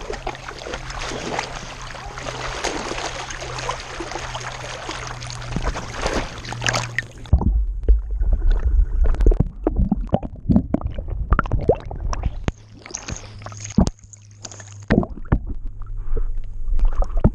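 Lake water splashing and sloshing around a swimming dog, picked up by a camera strapped to its back. A steady rush of splashing gives way about seven seconds in to a muffled, gurgling sound with irregular sloshes and knocks as the camera rides at the waterline.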